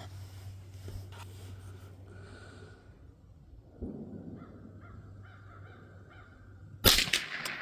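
A Savage A22 semi-automatic .22 LR rifle fires one sharp shot about seven seconds in, the loudest sound, with a short ringing tail. Before the shot, a bird calls a few times in short repeated notes.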